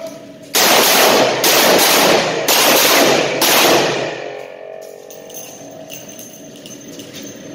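Revolver shots in quick succession, about four roughly a second apart, each echoing off the concrete walls of an indoor range before dying away after about four seconds.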